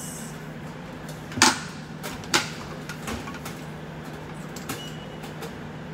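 Two sharp knocks about a second apart, and a few fainter ticks, over the steady low hum of a room air conditioner.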